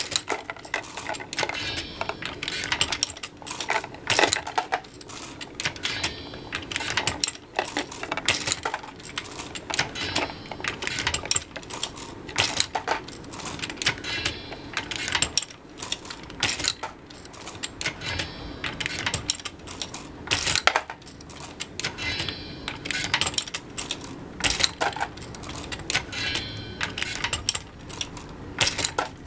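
Lee Loadmaster progressive reloading press being cycled: a rapid run of metallic clicks, clacks and clinks from the ram stroke, the indexing shellplate and the brass cases, repeating in a cycle every few seconds as rounds are loaded.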